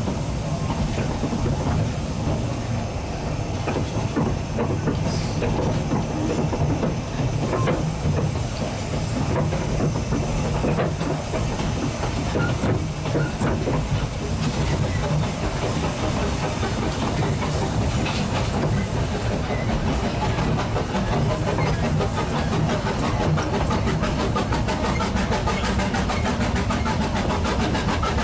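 Narrow-gauge train on the move behind the steam locomotive Linda: a steady running rumble of wheels on rail with the hiss of steam, and a fast, even beat that grows plainer in the later part.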